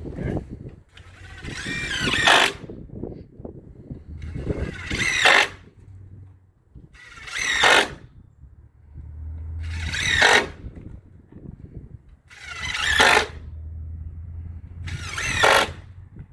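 A power driver running 1 5/8 inch screws into wooden fence pickets, six screws one after another about every two and a half seconds; each screw runs for about a second, getting louder as it drives home, then stops sharply.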